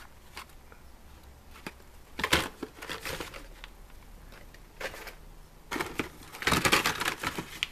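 Plastic blister packs on cardboard toy-car cards crinkling and clicking as they are handled and shuffled in a plastic tub: a few short bursts, then a longer, louder stretch of crackling near the end.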